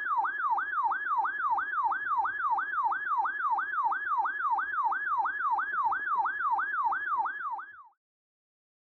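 RadioShack NOAA weather radio sounding its alert siren for a severe thunderstorm warning: a loud warbling tone that sweeps down and jumps back up about three times a second, cutting off suddenly near the end.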